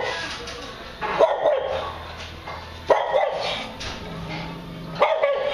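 Dog barking three times, about two seconds apart.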